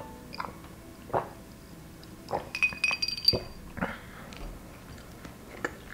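A drinking glass clinking and knocking as it is handled, with a quick run of ringing clinks about halfway through.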